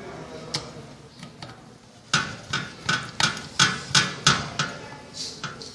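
A quick run of about eight sharp knocks, roughly three a second, from hand tools striking the metal parts while the blade bolts of a ceiling fan are fastened. A few lighter ticks come before them.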